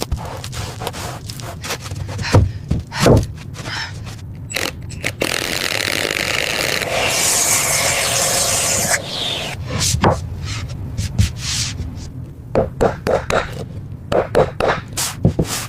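Restoration work on a small object by hand: scraping and rubbing with many short clicks and knocks. In the middle comes a few seconds of steady hiss, and near the end a run of quick taps.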